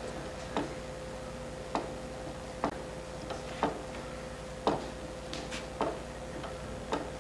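Small wooden folding table rocking, its legs knocking on the floor about once a second with lighter ticks in between, over a faint steady hum.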